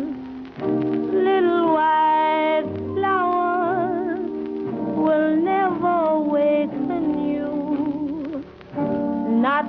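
Music: a melody with heavy vibrato over sustained held chords, with short breaks about half a second in and again near the end.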